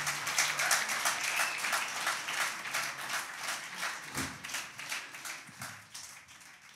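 Audience applauding at the end of the piece, the clapping fading away steadily. In the first moment the last plucked-string note is still ringing under it.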